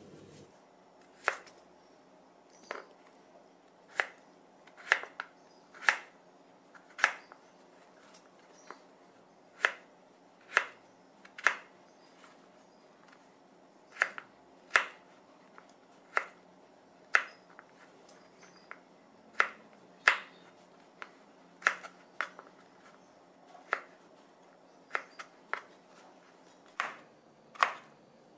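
Kitchen knife cutting raw potato into sticks on a plastic cutting board: sharp knocks as the blade hits the board, about one a second at an irregular pace.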